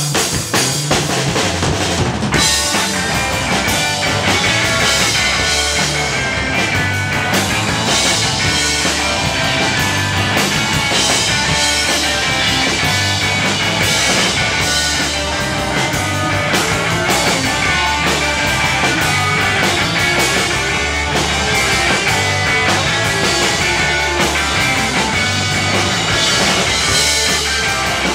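Rock band playing loudly, with a driving drum kit and bass drum under amplified instruments. There is a sharp hit about two seconds in, after which the full band plays on steadily.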